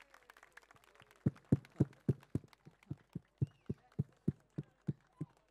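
A drum beating a steady rhythm of low thumps, about three to four a second, starting about a second in and growing fainter toward the end.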